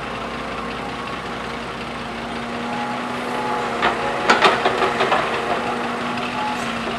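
Heavy diesel machinery running steadily, with a quick cluster of sharp clanks and knocks about four seconds in.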